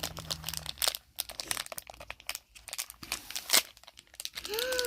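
Crinkly packaging of a surprise toy being unwrapped by hand: irregular crackling and rustling, with one sharper snap about three and a half seconds in. A child's voice starts near the end.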